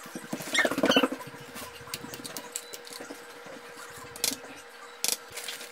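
A toddler's brief high, squeaky vocal sounds about a second in, then a few sharp clicks of a spoon against a plastic tray.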